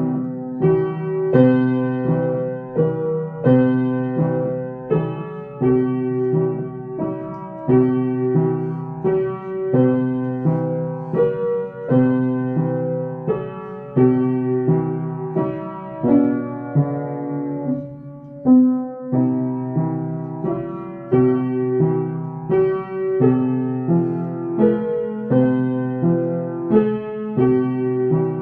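Piano playing a chordal accompaniment in a steady rhythm, a new chord struck about once a second.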